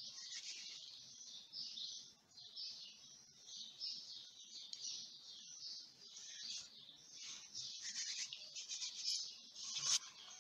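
Hands squeezing and rubbing crumbly pie dough in a bowl: a faint, irregular scrunching rustle, with a sharp tap near the end.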